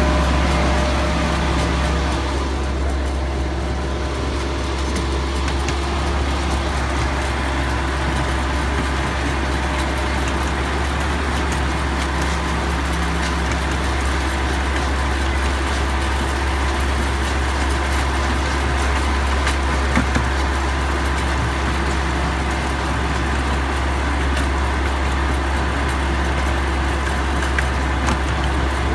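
Miniature park train running steadily: a constant low engine drone with rolling noise from the track, and a single click about twenty seconds in.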